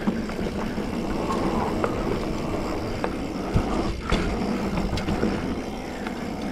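Specialized Fuse 27.5+ mountain bike rolling along a dirt trail: steady tyre and trail noise with the bike rattling, and a couple of sharp knocks a little past halfway.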